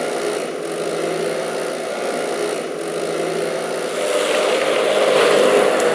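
A motor vehicle engine running steadily amid street noise, getting a little louder about four seconds in.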